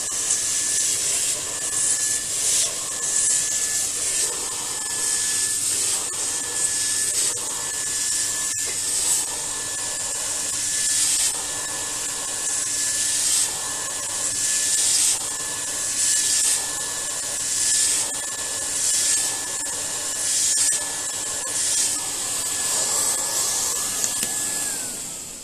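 TubQ TS1 central vacuum motor running with a steady high whine and a lower hum, while the clogged filter is cleaned with repeated rubbing strokes, roughly one a second. Near the end the motor is switched off and its whine winds down.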